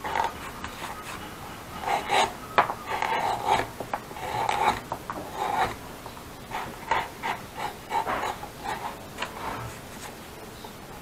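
A hand tool scraping and rubbing over leather on a saddle in irregular short strokes, the leather being worked and smoothed down by hand.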